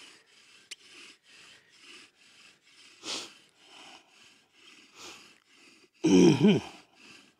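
Bow drill at work: a wooden spindle spun back and forth in a fireboard notch by a corded bow gives a faint rasping rub on each stroke, about two strokes a second, as the board is warmed back up toward an ember. About six seconds in, a short loud vocal sound from the man doing the drilling stands out over the rubbing.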